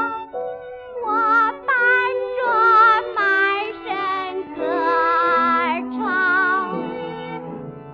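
A woman singing a slow Chinese song with wide vibrato on her held notes, over a steady instrumental accompaniment, from a noise-reduced recording.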